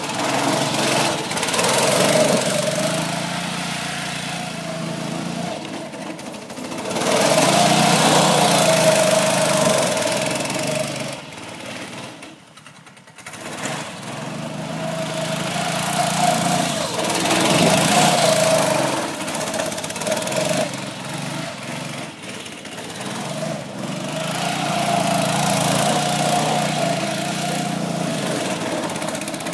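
Small engine of a Gemini off-road buggy running as the buggy drives circles and slides in snow. Its pitch and loudness rise and fall repeatedly, dropping away sharply for about a second near the middle.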